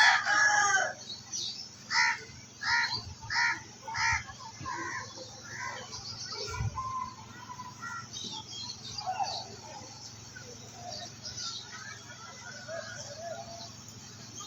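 Birds calling: a rooster's crow ends about a second in, followed by a run of short, sharp calls, about one every two-thirds of a second, then fainter scattered chirping.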